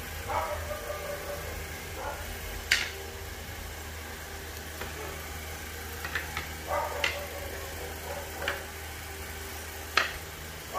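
Sharp knocks and clicks of wooden rocking-horse parts, screws and tools being handled and set down on a hard floor during assembly, about five of them spread through, over a steady low hum.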